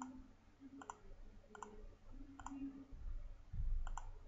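Computer mouse clicking about once a second, each click a quick press-and-release pair, as whiteboard tools are picked. A brief low rumble comes about three and a half seconds in.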